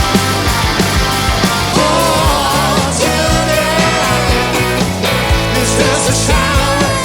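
Classic rock music played by a full band, with steady drum beats, bass and electric guitars. About two seconds in, a wavering lead melody comes in over the top.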